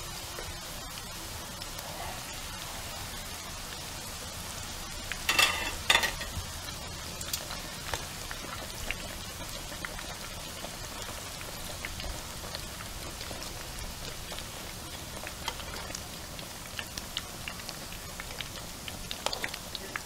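Tempura-battered catfish frying in hot oil in a wok: a steady sizzle with scattered crackles and pops. Two louder bursts of noise come about five and six seconds in.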